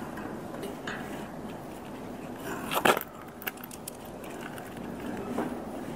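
Spanner turning the levelling nut on the threaded post of a steel frame's adjustable footing: a few scattered metal clicks and scrapes, the loudest a short clatter about halfway through.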